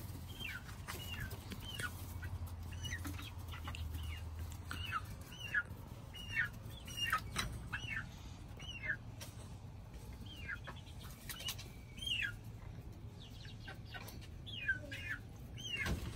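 Young chickens, two-month-old chicks, peeping over and over: short high calls that each drop in pitch, about one or two a second.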